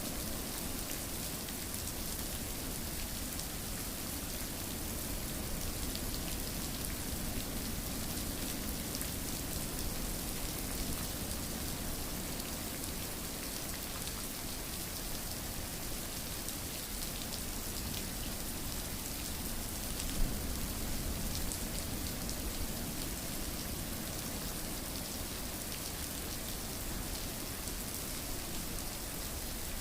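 Steady rain falling, a continuous even patter of raindrops, with one brief louder tap about twenty seconds in.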